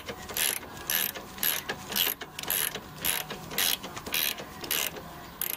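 A hand socket ratchet clicking as it is worked back and forth on a seat-rail mounting bolt, in an even rhythm of about two strokes a second.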